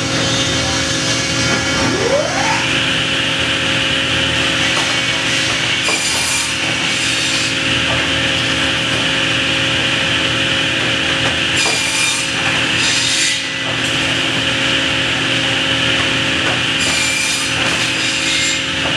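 Heavy-duty pit unscrambler and deck running with a steady machine hum, wooden cants rubbing and scraping along it. A rising whine about two seconds in, and several short bursts of hiss or scraping through the rest.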